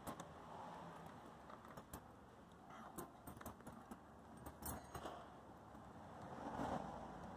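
Faint, scattered clicks and light scraping as a plastic mesh radiator grille is pushed and worked by hand into a car's lower front bumper intake.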